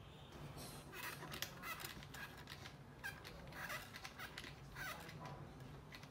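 IKEA plastic wall clock being handled while its hands are turned to set the time: faint, irregular clicks and scrapes of plastic.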